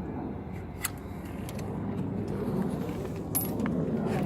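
A few light metallic clicks and clinks from hand tools and spark plugs being handled, one with a brief high ring, over a steady low background rumble.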